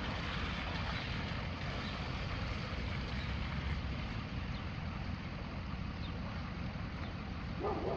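Pickup truck's 6.4-litre gas V8 running, a steady low rumble with wind noise on the microphone.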